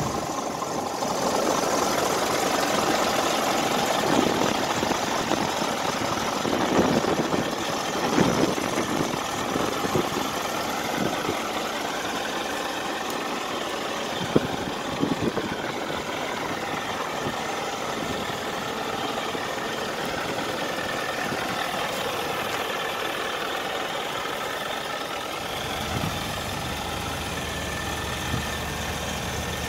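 2012 Scania G400 tractor unit's six-cylinder diesel engine idling steadily, with a few light knocks in the first half. Its low hum comes up stronger near the end.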